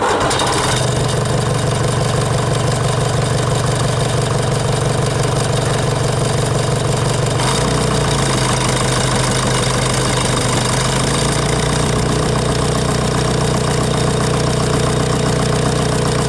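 Nuffield tractor engine running steadily at low road speed, heard close from the bonnet. Its note shifts in pitch about seven and a half seconds in and again about eleven seconds in.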